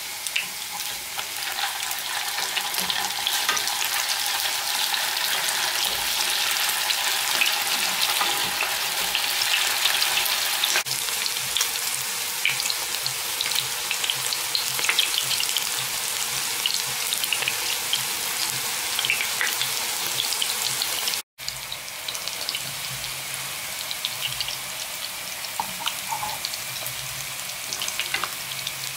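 Minced-meat meatballs sizzling and crackling steadily as they fry in hot oil in a pan. The sound cuts out for an instant about two-thirds of the way through.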